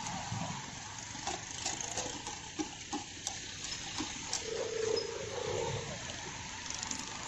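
Cut potatoes deep-frying in a pot of hot oil, a steady sizzling hiss, with several light metallic clinks from the wire fry basket as it is lifted and shaken. A brief tone sounds about five seconds in.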